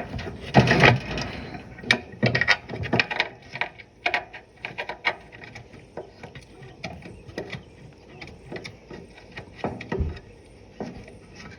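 Irregular metal clicks and knocks of engine mounting bolts being fitted and threaded by hand into a lawn tractor's engine deck, with a louder clatter about a second in.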